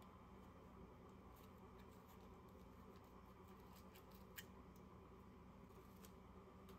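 Near silence: low room tone with a steady hum and a few faint, scattered ticks, the sharpest about four and a half seconds in.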